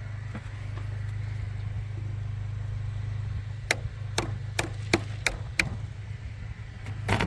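A run of about six sharp clicks, roughly two a second, then a short scrape near the end, from hands working at the top of the engine bay. A steady low hum runs underneath.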